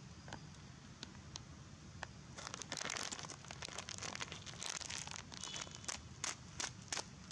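A long-tailed macaque chewing crunchy food with its mouth open: a few scattered clicks, then about two seconds in a dense run of crackling, crunching clicks that thins into separate snaps near the end.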